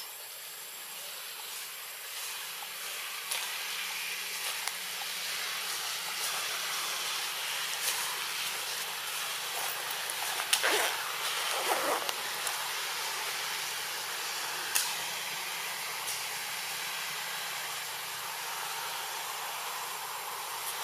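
Steady hiss of outdoor ambience, with a few faint clicks and two short, louder sounds about halfway through.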